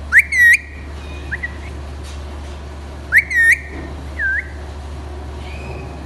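Alexandrine parakeet whistling: two loud, sharply rising whistles about three seconds apart, each followed by a shorter, softer whistle.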